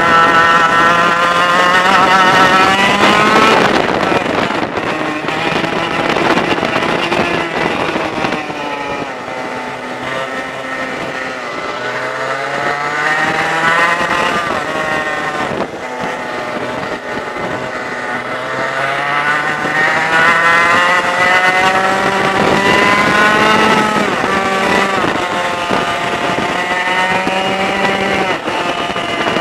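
100cc two-stroke racing kart engine heard onboard at racing speed. Its pitch climbs and drops again and again as the revs rise and fall through the corners. Other karts' engines run close by.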